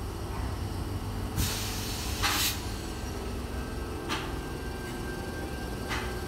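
Sydney Trains double-deck electric train with its doors shut, starting to pull away: a steady low rumble, two loud hisses of released air about one and a half and two and a half seconds in, then shorter hisses, and a faint steady whine from about four seconds in.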